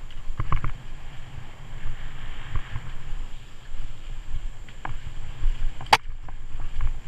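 Mountain bike riding fast over dirt singletrack: a steady low rumble of tyres and wind on the helmet camera's microphone, with scattered rattles and knocks from the bike over the rough ground and one sharp clack about six seconds in.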